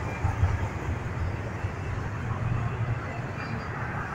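Double-stack intermodal freight cars rolling steadily past on the rails, mixed with passing highway traffic.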